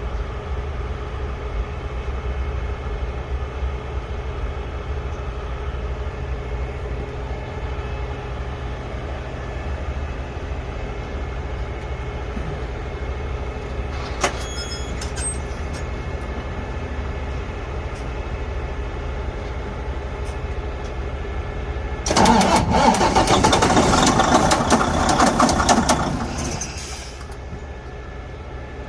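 Detroit DD15 diesel engine in a Freightliner Cascadia running steadily. The engine has a connecting rod bearing almost destroyed by lost oil pressure, which gives it its loud noise. About two-thirds of the way through, a much louder rushing burst lasts about four seconds and then stops.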